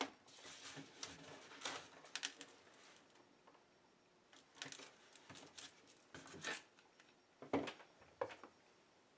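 Scattered light clicks, taps and rustles as a plastic-cased ABS brake control module is handled and pressed together by hand on a workbench, with a sharper knock near the end.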